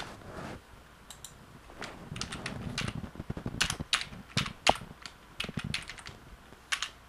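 Typing on a computer keyboard: irregular runs of keystroke clicks, coming thick from about two seconds in, after a single sharp click at the very start.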